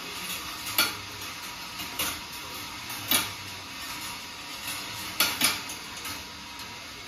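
Glass marbles rolling along the steel wire rails of a marble run: a steady rolling hiss broken by sharp clacks as marbles strike the wire, five in all, two of them close together near the end.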